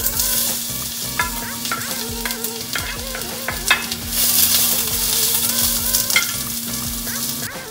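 Sliced onions sizzling as they hit hot oil in an enamelled cast-iron pan, with a wooden spoon knocking and scraping against the pan as they are stirred. The sizzle starts at once, swells about four seconds in, and cuts off near the end.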